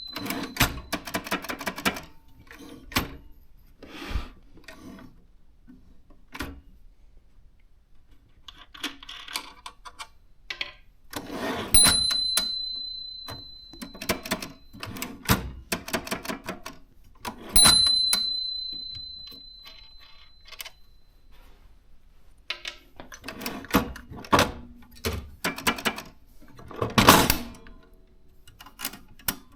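Consul typewriter clacking in irregular runs of keystrokes. Its bell rings twice, about 12 and 17.5 seconds in, each ring fading over a few seconds, and there is a louder clatter near the end.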